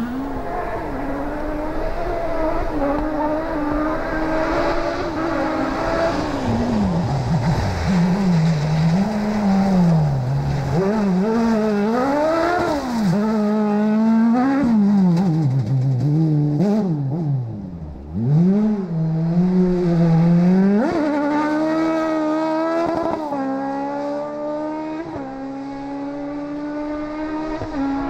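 Off-road rally buggy's engine revving hard, its pitch climbing and dropping again and again as it shifts gears and lifts off for corners, then holding a higher note in the last few seconds.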